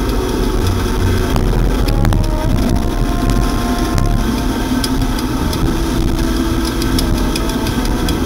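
Motorcycle engine running steadily at road speed, heard with wind and road noise on a handlebar-mounted camera, with scattered small clicks and rattles.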